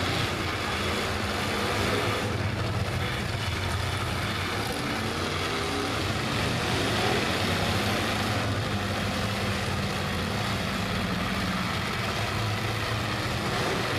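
Engines of several demolition derby cars running together, a steady low drone with no distinct crash.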